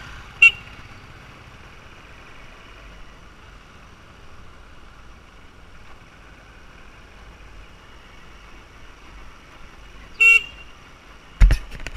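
A motorbike horn beeps briefly twice, about half a second in and again about ten seconds in, over the steady running noise of a motorbike on a dirt road. A loud thump comes near the end.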